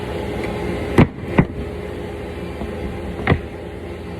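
Router table motor running steadily, with three short, sharp noises over it: two close together about a second in, and one near the end.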